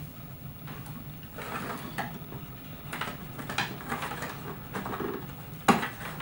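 Small clicks and rattles of SATA and power cable connectors being unplugged and handled inside a computer case, with one sharper knock near the end.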